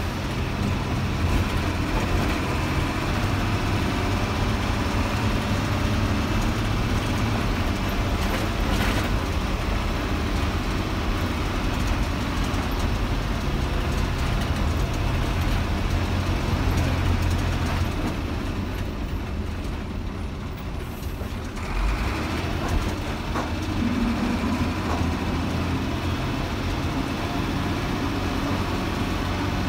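DINA CATOSA Sansón bus running steadily, a low diesel drone with road and body noise. The drone eases briefly about two-thirds through, and a single knock comes soon after.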